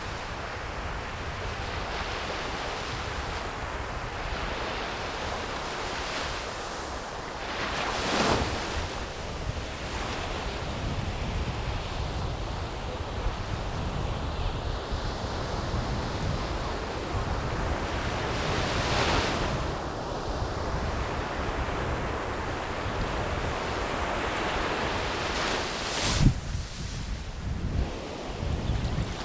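Surf breaking on a beach with wind blowing across the microphone, a steady rushing wash. Three louder waves crash about eight, nineteen and twenty-six seconds in.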